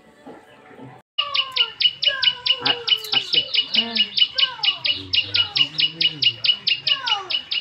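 Birds calling, starting about a second in: a fast, even chirping about six times a second, with lower calls that fall in pitch.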